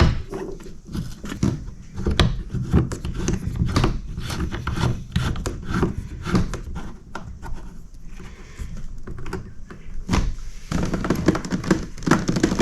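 Hands working the kayak seat frame and its track fitting: a busy run of knocks, clicks and rubbing of plastic and metal hardware as the seat is reattached to the track.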